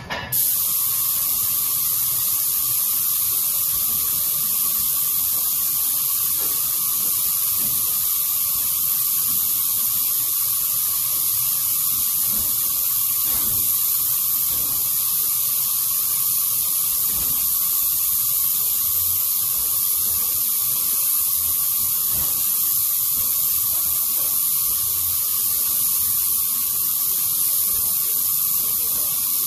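Airless paint spray gun hissing steadily as its trigger is held, atomising a thinned mist coat onto new plaster, with a faint steady tone under the hiss. The hiss cuts in just after the start.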